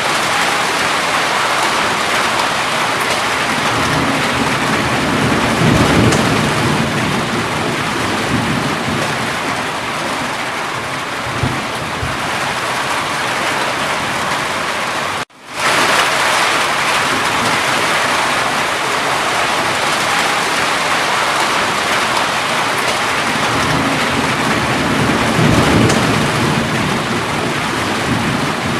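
Steady heavy rain with rolling thunder rumbling twice, once several seconds in and again near the end. The rain cuts out for a split second about halfway through.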